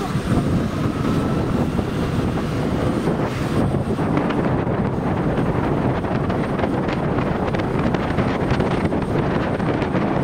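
Wind rushing over the microphone of a moving motorcycle, with the bike's engine and road noise running steadily underneath.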